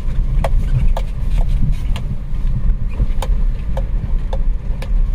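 Inside a Maruti Celerio driving slowly over a stony riverbed: steady low engine and road rumble, with irregular sharp clicks and knocks as the car jolts over the rocks.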